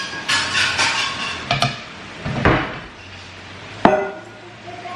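Stainless steel kitchen vessels clinking and clattering as they are handled and set down: a run of ringing clinks in the first two seconds and one sharp ringing clank about four seconds in.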